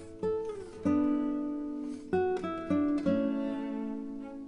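Background music: an acoustic guitar playing a slow melody of plucked notes that ring and fade, one sliding down in pitch about half a second in.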